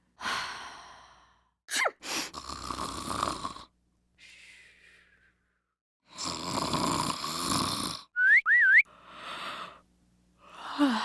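A string of separate human breath sounds: noisy exhales and snore-like breaths, each a second or two long with short gaps between them. A little after the middle comes a quick two-note whistle.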